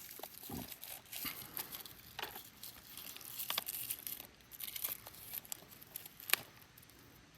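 Wrapper of a pack of bottle rockets crinkling and tearing as it is opened one-handed, with irregular rustles and small clicks.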